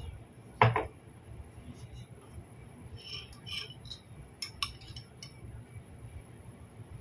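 Cutlery clinking and scraping against a ceramic bowl while salad is served. A loud knock with a short ring just over half a second in is the loudest sound, followed later by a few lighter ringing clinks and sharp ticks.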